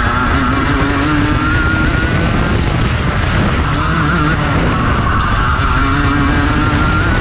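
Rotax Max Junior 125cc two-stroke kart engine running at racing speed: its pitch climbs, drops briefly around the middle as the driver lifts, then climbs again under full throttle.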